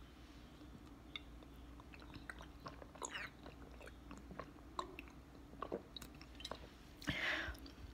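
A person drinking soda from a glass bottle: quiet swallows with small, scattered mouth and bottle clicks, and a short breathy rush about seven seconds in.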